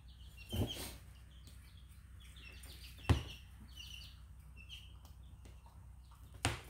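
Short high bird chirps repeating in the background. Over them come three sharp clicks and knocks, the loudest about three seconds in, as the plastic nozzle of a silicone sealant tube is trimmed with a blade.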